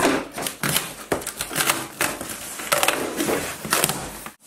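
Cardboard box being opened by hand: packing tape pulled off and cardboard flaps pushed back, a run of irregular crackling, scraping and rustling noises.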